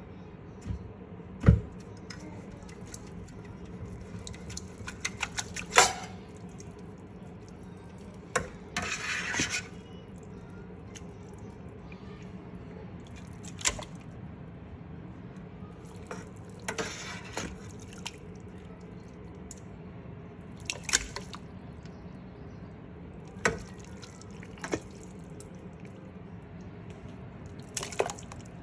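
Sporadic taps, clinks and liquid drips and splashes from a bowl of Vietnamese pho being handled, with two longer wet, noisy stretches of about a second, over a steady low hum.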